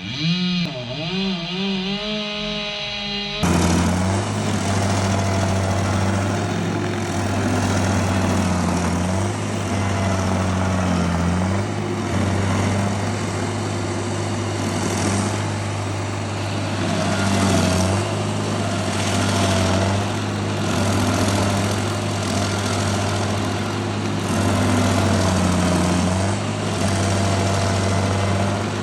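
Petrol engine of a stump grinder running steadily, its note sagging briefly a few times. It cuts in abruptly a few seconds in, after a short stretch of wavering, music-like tones.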